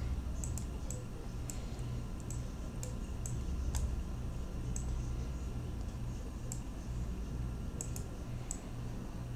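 Computer mouse clicking as the interface is worked: about fifteen sharp, irregular clicks, over a low steady hum.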